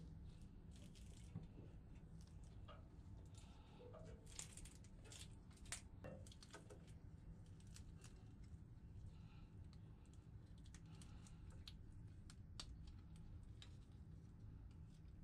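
Faint, irregular clicks and rattles of the segmented links of a PowerTwist Plus link V-belt being handled and fitted with gloved hands, over a low steady hum.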